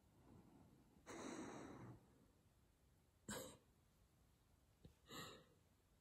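Sleeping dog making three noisy breaths in her sleep: a longer sigh about a second in, a short sharp snort about three seconds in, and another near the end, loud enough that she nearly wakes herself up.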